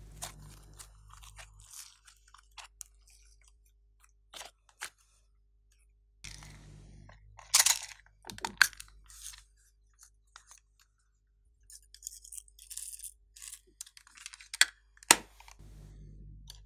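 Thick clay-like slime squeezed, folded and pulled apart by hand, giving sticky crackling, tearing and popping sounds. The loudest pops come about halfway through, with one sharp snap near the end.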